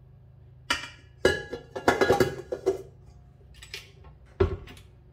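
Kitchen bowls and utensils clinking and knocking as they are handled and set down: a string of sharp, briefly ringing knocks, busiest in the middle, with two more single knocks near the end.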